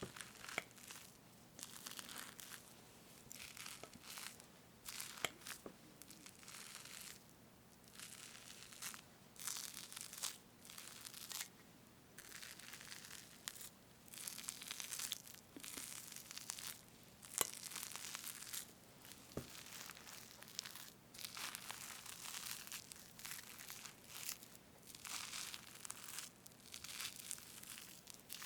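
Whipped cream on a strawberry cake being parted and cut close to the microphone: a string of soft, airy, squishy strokes, one every second or two.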